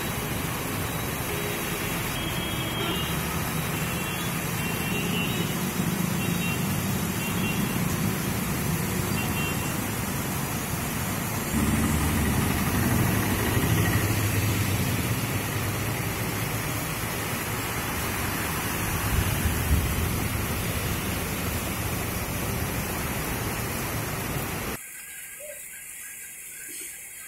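Steady hiss of heavy rain, mixed with the rumble of motor scooters and cars passing on a wet road. Near the end the sound drops abruptly to a quieter rain hiss.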